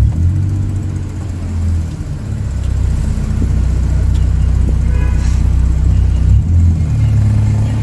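A car's engine and road noise, heard from inside the cabin: a steady low drone that shifts in pitch about two seconds in and again about six and a half seconds in.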